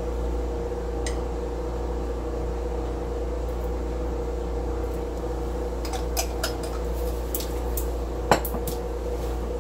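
Steady kitchen hum with a few light clicks and clinks of bottles and dishes being handled on a counter, one sharper knock about eight seconds in.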